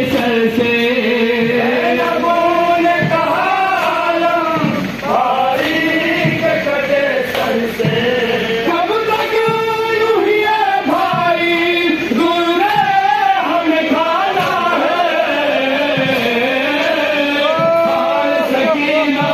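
Men's voices singing a noha, a Shia mourning lament, in a chanting style with long held, wavering notes.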